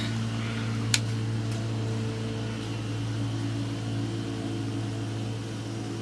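Steady low machine hum, with a single sharp click about a second in.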